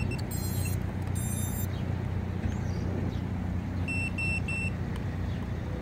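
KingKong Fly Egg 130 quadcopter's brushless motors sounding their ESC power-up beeps: two short beeps in the first second and a half, then three quick, even beeps about four seconds in. A steady low hum runs underneath.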